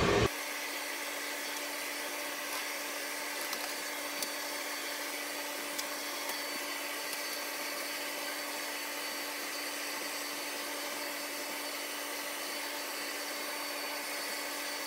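Steady whir of running cooling fans, with a constant hum tone under it and a few faint clicks.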